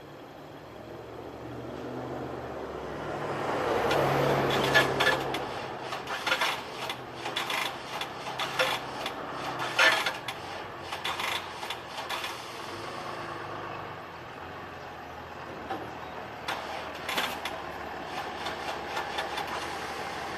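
The 2000 Pontiac Firebird's 3.8L V6 is being cranked by its starter without catching: a rasping whir that builds for a few seconds, with a run of sharp clicks over the following several seconds. This is the car's hard start on a worn battery.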